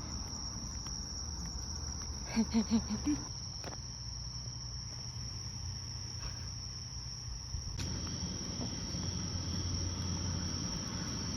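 Insects chirring in a steady high, unbroken drone, over a low background rumble. About two and a half seconds in, a person's voice gives four quick short notes.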